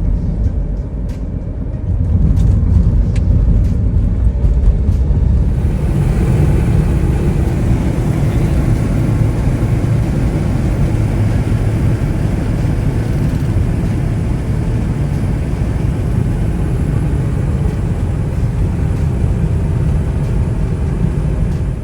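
Car driving, with a steady low rumble of engine and road. There are a few light clicks in the first seconds, and a broader hiss joins in about six seconds in.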